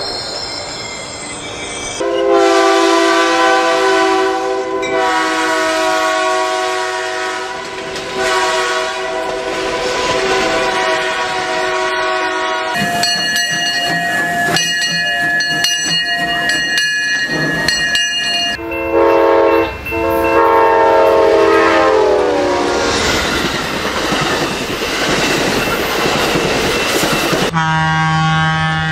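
Recorded real train sounds: long blasts of a multi-note train horn, then a high, steady ringing set of tones struck at regular intervals, another whistle blast that sags in pitch as it ends, the noisy rush of a passing train, and a short horn blast near the end.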